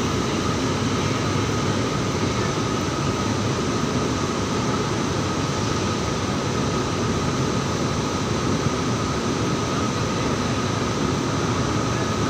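Electric locomotive standing with its pantograph raised, its cooling blowers and auxiliary machinery running: a steady hum with a faint whine over it.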